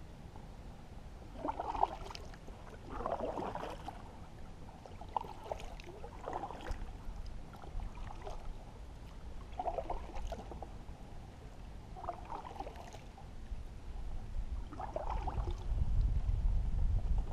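Canoe paddle strokes in calm water: a dip and swirl of the paddle about every two seconds, with a low rumble of wind on the microphone near the end.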